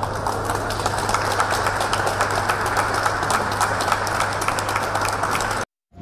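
Crowd of onlookers clapping and applauding, a dense patter of claps over a steady low hum; it cuts off suddenly near the end.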